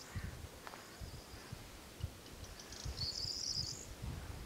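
A small bird singing a buzzy, jangling trill twice, briefly at the start and again for about a second near the end, over low rumbling puffs of wind on the microphone.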